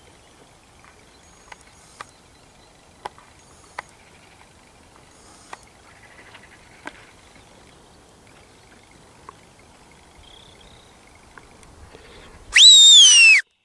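A sheepdog handler's whistle command: one loud whistle of about a second near the end that jumps up in pitch, then slides slowly down before cutting off. Before it, only a few faint scattered ticks.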